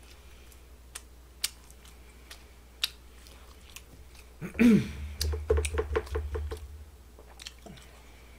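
Wooden chopsticks clicking a few times against plastic takeout trays, then about halfway through a short, louder stretch of mouth noises and chewing as food is eaten.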